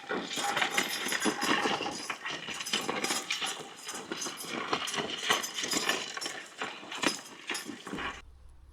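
Team of Percheron horses pulling a plough: irregular clatter of hooves and harness, cutting off suddenly near the end.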